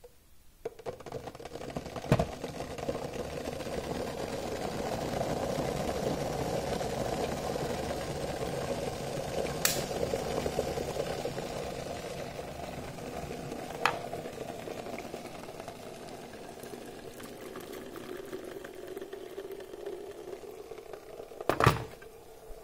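Crystal stainless-steel electric kettle heating water: a steady rumbling hiss that builds over the first few seconds as the water comes to the boil. About ten seconds in, a sharp click as the kettle switches itself off, after which the boiling noise slowly dies down. A few small ticks along the way and a short, louder knock near the end.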